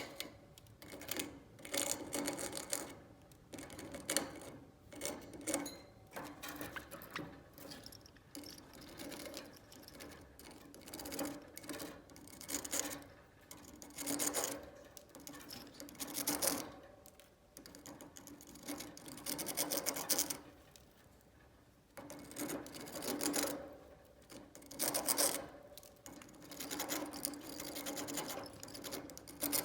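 Budgie gnawing at a cuttlebone, its beak rasping and scraping the soft bone in quick runs of fine strokes with short pauses between.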